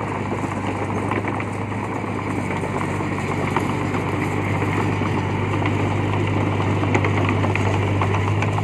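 D20 bulldozer's diesel engine running steadily with a low, even hum and a light metallic clatter over it.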